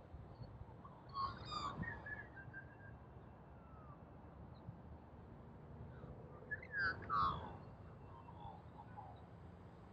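Birds calling in two short bursts of warbling, gliding notes, one about a second in and a louder one about seven seconds in, over a low steady wind rumble on the microphone.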